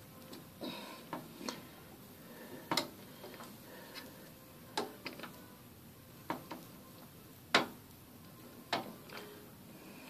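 A hand screwdriver driving small screws into a graphics card gives a string of sharp, irregular clicks, about eight of them, a second or two apart.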